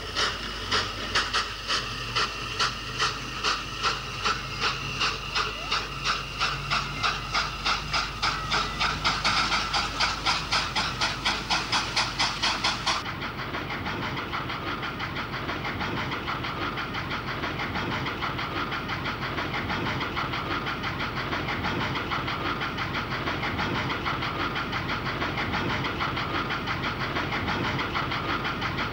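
Narrow-gauge steam locomotive pulling away, its exhaust beats starting slow and quickening steadily as it gathers speed. About 13 seconds in the sound changes suddenly to a steady, faster running rhythm of the train under way.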